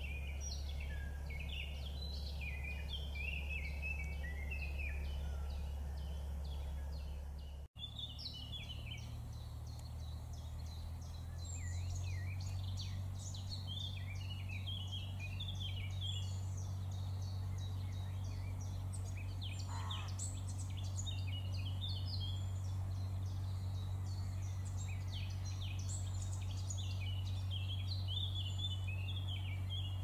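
Small birds chirping and singing in quick, short notes, with a steady low hum underneath. The sound drops out for a moment about eight seconds in.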